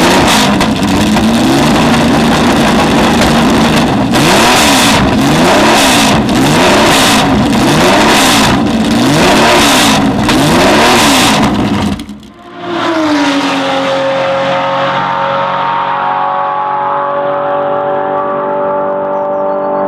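Ford GT40's 7.0-litre V8 racing engine revving hard, its pitch rising and falling in quick repeated swells, well over once a second. It cuts out about twelve seconds in and gives way to a steady held tone made of several pitches.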